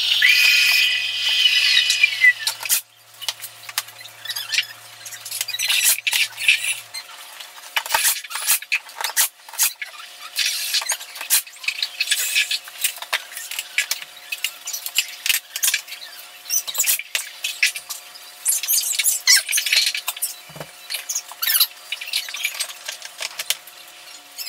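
Irregular sharp clicks and taps as wood trim molding is set against the wall and fastened with a brad nailer. A high squeal, falling in pitch, sounds near the start.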